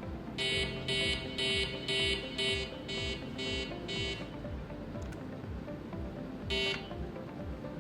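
Electronic alarm clock beeping: eight short, high beeps about two a second, then one more after a pause of about two seconds, over background music with a steady beat.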